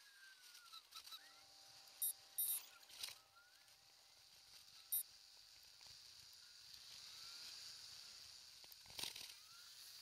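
Kugoo G Booster electric scooter riding over brick paving: a faint steady hiss with a few sharp clicks and rattles as it jolts over bumps, the loudest near the end. Faint short bird chirps now and then.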